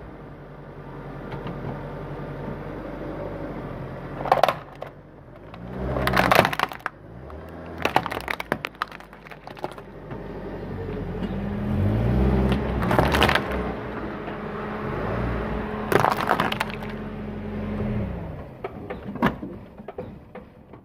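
Plastic toy trucks and cars cracking and crunching under a car's tyres, about six sharp cracks spread over the stretch, over the car's engine running at low speed.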